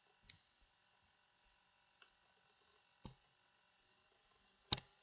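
Computer mouse button clicked four times, each a single sharp click, the last near the end the loudest, over a faint steady hum.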